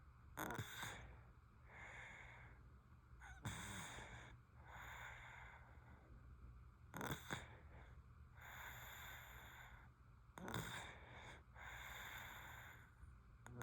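Sleeping baby snoring faintly: four short snores, about one every three and a half seconds, with breathing between them.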